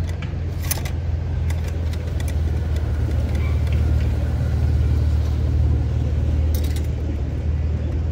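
A steady low rumble throughout, with a few light clicks and clinks of camp gear being handled on a wooden folding table, one near the start and another about six and a half seconds in.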